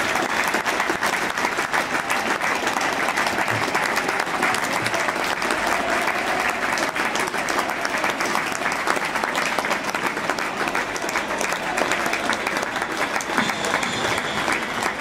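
Large football crowd applauding in the stands: dense, steady clapping from many hands, with voices mixed in.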